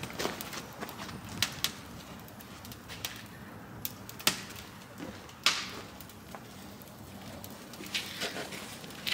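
Fire burning in a perforated steel drum under a boiler, crackling with irregular sharp pops and snaps, a few louder ones about halfway through and a small cluster near the end.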